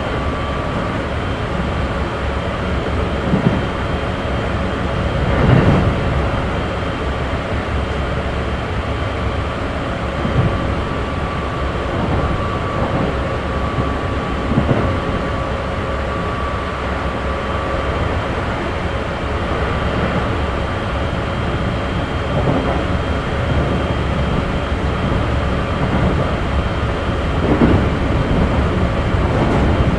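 Running sound inside a Keikyu 1500 series electric train's motor car with Mitsubishi GTO-VVVF drive, travelling between stations at a steady speed: a continuous rumble of wheels on rail with steady, unchanging whine tones, and a few knocks over rail joints, the loudest about five seconds in.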